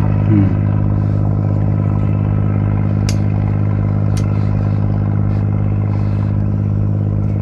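A machine running steadily, giving a deep, even drone. Two short sharp clicks come about three and four seconds in.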